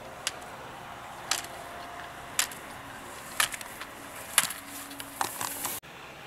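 Slalom gate poles being struck by a skier cross-blocking through the course: sharp knocks about once a second, a few in quick pairs, over a steady hiss. The sound cuts off abruptly near the end.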